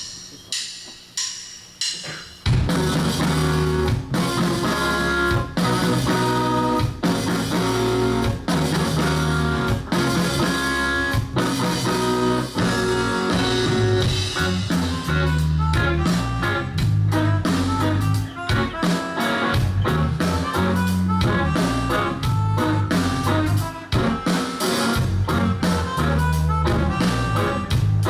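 A live rock band starts a song: four sharp clicks count it in over about two seconds, then guitars, bass and drum kit come in together loudly and play on with a steady beat.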